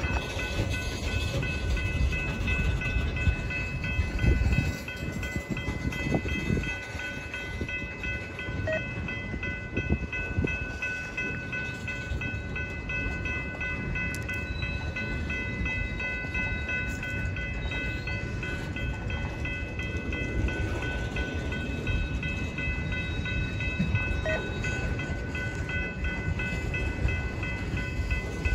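Freight train of tank cars rolling past at close range: a steady rumble of wheels on the rails with occasional knocks and a steady high ringing over it, a little louder in the first few seconds.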